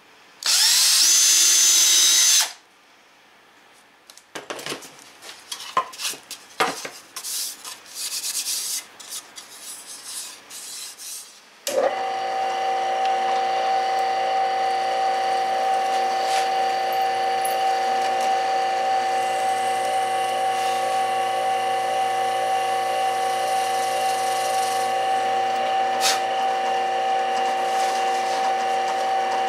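A cordless drill runs for about two seconds, boring a pilot hole in a thin hardwood panel. Scattered knocks and handling clatter follow. From about twelve seconds in, a drill press motor runs with a steady hum.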